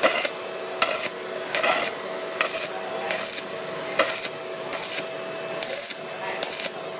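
Ptools ZX7-270 mini inverter stick welder's arc crackling in short bursts, about one every 0.8 s, as the electrode is struck and pulled off again in a stitch (tap-and-release) technique, over a steady high hum. The current is turned up past 200 A, and the thin steel keeps burning through.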